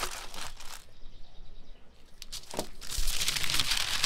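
Aluminium foil crinkling as hands fold and press it around food. Crackling in the first second, a short lull, then louder, continuous crinkling from about three seconds in.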